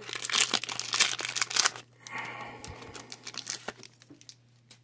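Foil wrapper of a Pokémon booster pack crinkling and tearing as the pack is ripped open: a dense crackle for about two seconds, then quieter rustling.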